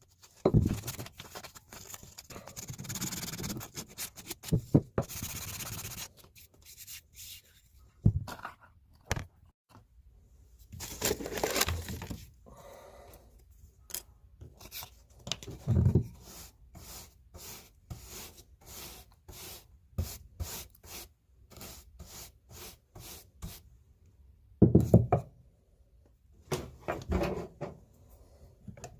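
Hand work on the punch: stretches of rubbing and scraping, broken up by knocks and light clicks, with an even run of light clicks in the middle.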